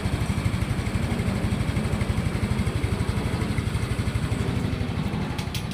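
Yamaha Mio i 125 scooter's single-cylinder four-stroke engine idling steadily with an even pulse, with a few light clicks near the end.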